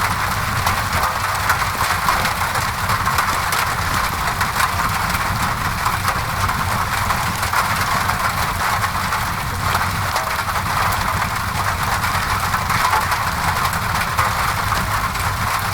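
Steady rain on a window mixed with a crackling wood fire: a constant hiss of rain, many small irregular pops and crackles, and a low steady rumble underneath.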